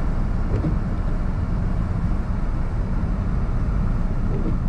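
Steady low rumble of a car driving through heavy snow, heard from inside the cabin: road and wind noise with no distinct events.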